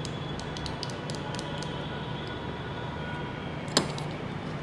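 Steady background rumble and hiss with a faint hum, broken once near the end by a single short click.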